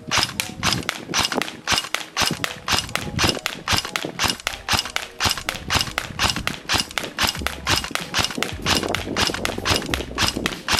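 G&G GKM airsoft electric gun (AEG with electric blowback) firing in semi-automatic: a quick, even string of sharp shots, about four to five a second.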